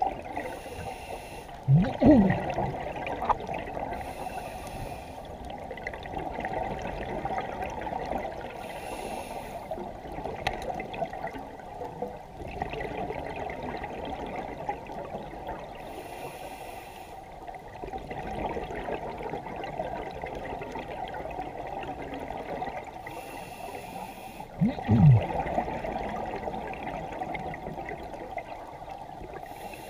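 Underwater sound picked up through a camera housing during a scuba dive: a steady muffled wash, with a regulator's breathing on top. There are short hisses every few seconds and two loud bubbling rushes that fall in pitch, about two seconds in and near the end.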